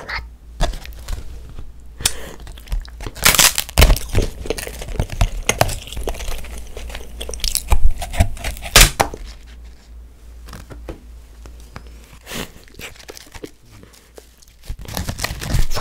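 Edible colored paper sheet being bitten, torn off with the teeth and chewed, close-miked: crisp tearing and crunching crackles, loudest in two bursts about three and eight seconds in, then softer chewing.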